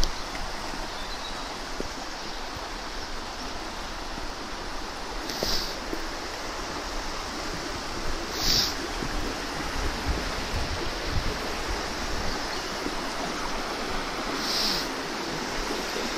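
Small woodland stream rushing over rocks: a steady, even rush of water.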